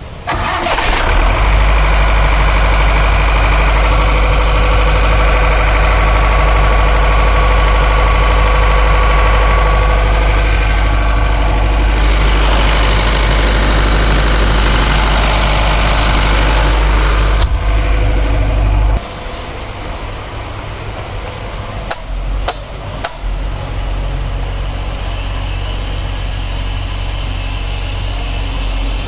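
Diesel generator set with a turbocharged Tata 407 engine running steadily with a deep low rumble. It comes in abruptly loud at the start and drops sharply to a quieter steady run about two-thirds of the way through.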